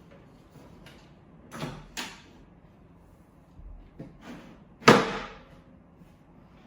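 Board of a car bed platform being pushed along its rail: two short sliding scrapes about a second and a half in, more around four seconds, then one sharp, loud knock just before five seconds.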